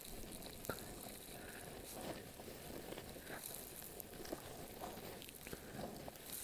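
Hereford calves grazing close by: faint, irregular tearing and crunching as they rip and chew dry grass.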